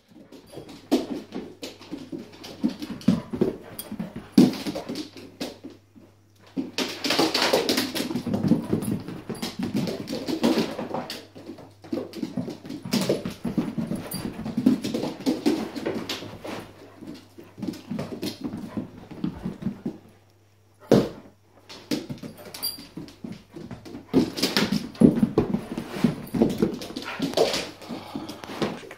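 A Doberman puppy and an older dog playing, with stretches of dog whining and scuffling broken by a few short pauses, and one sharp knock about two-thirds of the way through.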